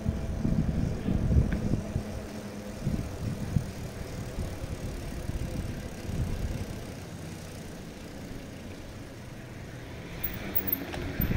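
Low, uneven rumble of a bicycle rolling along an asphalt street, easing off in the second half as it slows.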